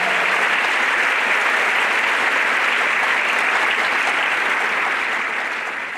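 Audience clapping steadily in applause.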